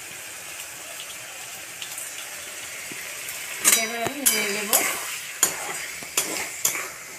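Chopped onions and red chillies sizzling in hot oil in a kadai. From about halfway, a metal spatula stirs them, scraping and knocking against the pan in repeated strokes.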